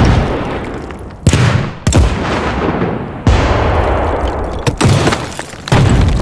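A quick run of explosion sound effects: about seven sharp blasts, roughly a second apart, each dying away in a low decaying tail before the next.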